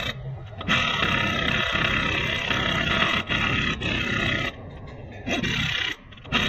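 Pneumatic impact wrench running on a car wheel's lug nuts: one long burst of nearly four seconds, then a short burst.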